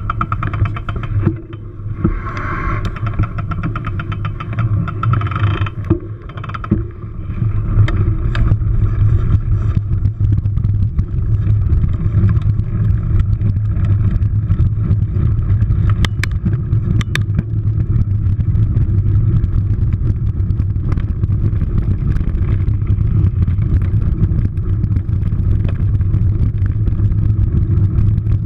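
Wind rumble and trail noise picked up by a camera riding a mountain bike on dirt singletrack: a steady low rumble that grows louder about seven seconds in, with a couple of sharp knocks from the bike over bumps.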